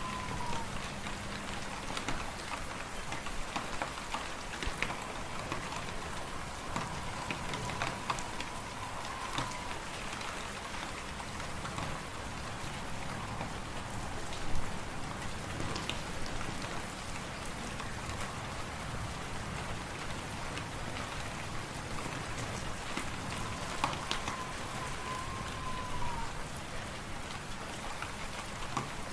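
Wood fire in a fireplace crackling, with many sharp pops over a steady hiss and one louder pop about halfway. A thin whistle comes and goes several times, dipping in pitch as it fades.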